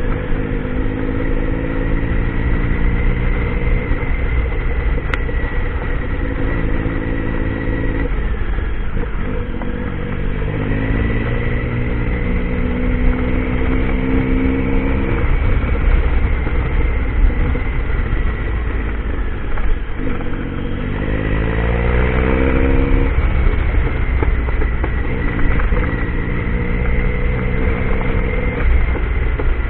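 Triumph Tiger adventure motorcycle's engine running under way, its pitch repeatedly climbing with the throttle and falling back, most sharply about two-thirds of the way through, over a constant low rumble of wind and terrain.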